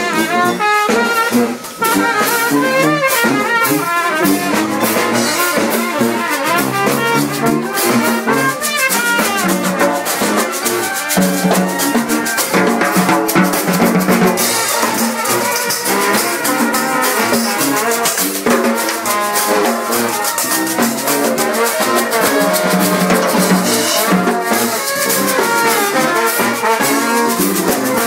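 A brass street band playing live: horns carrying the melody over constant percussion.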